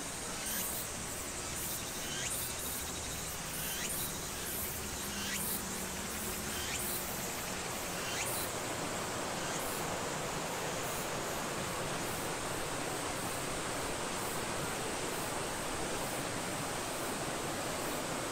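Insects chirping in a fast, high pulsing trill over a steady rushing noise that gets a little fuller about halfway through, with a few light ticks in the first half.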